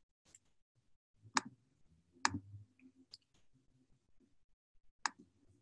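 A handful of faint, sharp clicks at irregular intervals over quiet room tone.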